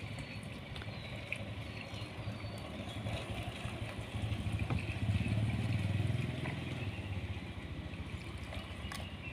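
A motor vehicle's engine running steadily, growing louder about four seconds in and easing off again toward the end.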